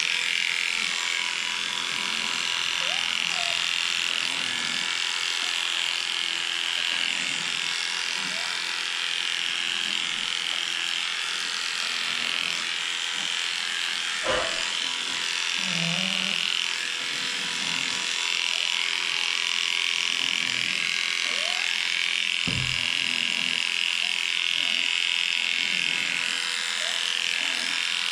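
Electric dog grooming clippers running steadily while shaving a pug, with the pug's snorting, laboured breathing faintly underneath, the sign of a breed prone to breathing problems. A short knock about halfway through.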